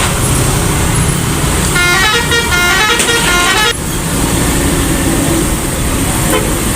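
A bus's Basuri telolet horn, a multi-note musical horn, plays a short stepping tune for about two seconds, starting about two seconds in. It sounds over the steady rumble of heavy vehicle engines and traffic.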